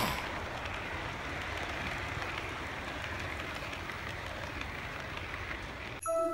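Model passenger train running along its track, a steady rolling noise of wheels on the rails. About six seconds in, music with held notes begins.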